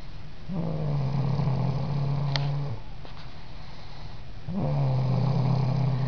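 Snoring: two long, steady snores about four seconds apart, each lasting a little over two seconds.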